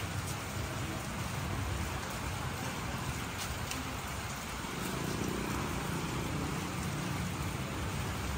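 Red two-stroke oil being poured steadily into a Yamaha RX King's oil tank as it is refilled, a continuous trickling.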